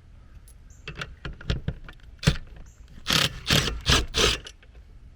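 A few sharp clicks and knocks of metal, then four short bursts of a cordless drill/driver backing out a mounting screw from an AC disconnect box.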